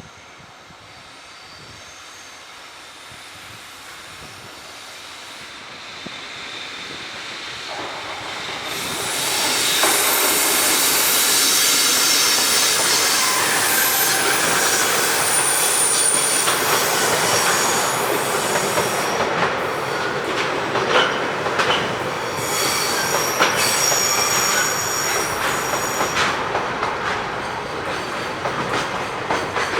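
A freight train approaching and passing close by: its noise builds over the first several seconds and is loud from about nine seconds on. Steady high-pitched wheel squeal runs through the passage, and from about halfway a rapid clatter of wheels over rail joints joins it.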